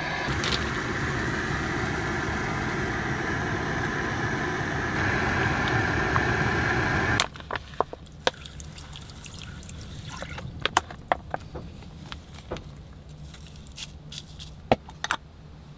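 Strong gusty wind rushing and whistling around a parked camper van for about seven seconds, then cutting off abruptly. After that it is much quieter, with scattered light clicks and taps.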